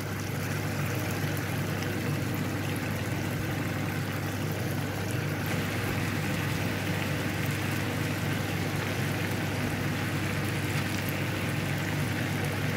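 Diced chicken breast and sliced mushrooms sizzling in oil in a frying pan: a steady hiss that grows slightly louder about half a second in, as the mushrooms go in, over a steady low hum.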